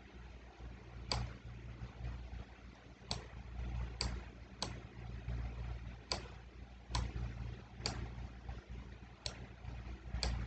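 Computer mouse buttons clicking: about nine sharp single clicks at uneven intervals while a picture is resized and dragged on screen, over a faint low steady hum.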